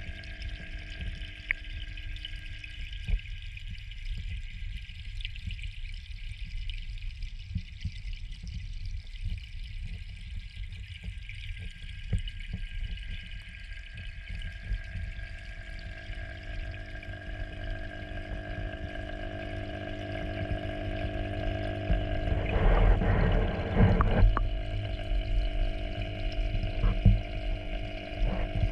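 Submersible electric water pump humming steadily, heard underwater, over a low water rumble and small clicks. Louder, uneven water sloshing and bumps come in over the last several seconds.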